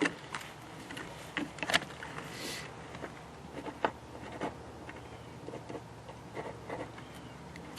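Scattered light clicks, taps and rustles of a paper turkey tag being handled and signed with a pen, over a low steady hum.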